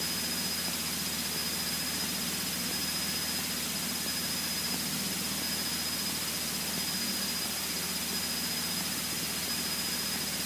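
Steady drone of a Cessna 152's four-cylinder engine and propeller, heard from inside the cockpit, with a thin high whine held throughout.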